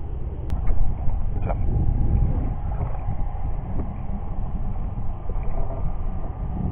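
Steady low rumble of a small vehicle running, with a faint steady whine and a few light knocks.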